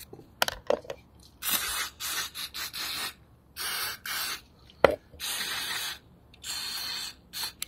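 Aerosol brake cleaner sprayed in several short hissing bursts, the longest about a second, onto the pistons of a motorcycle brake caliper to clean off grime. A sharp click about five seconds in.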